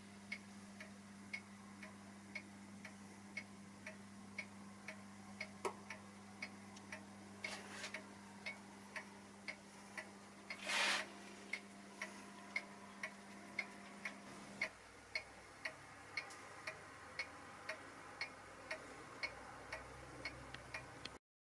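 Regular ticking, about two ticks a second, over a steady low hum that cuts off about two-thirds of the way through; a short, louder burst of noise about halfway.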